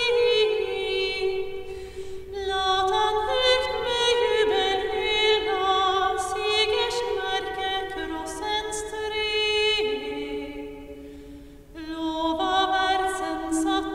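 A solo female voice singing a Norwegian hymn unaccompanied to a twelfth-century chant melody. The notes are slow and held, moving stepwise, with brief pauses between phrases.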